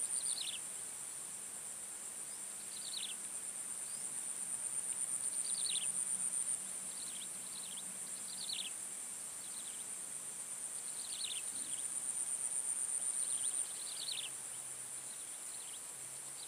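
Insects trilling steadily at a very high pitch in a fast pulsing rhythm, swelling louder twice, with short high chirps that drop in pitch every second or two.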